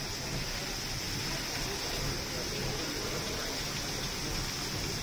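Tatsumaki Jigoku geyser erupting: a steady rush of hissing spray as the jet of boiling water strikes its stone cap and splashes down into the pool.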